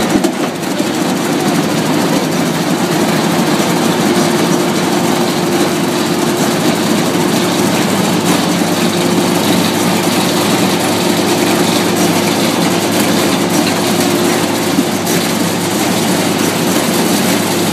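ABM240 K-span arch-building machine, a hydraulic roll-forming machine, running with a loud, steady mechanical drone. A steady tone in the drone drops away about fifteen seconds in while the machine keeps running.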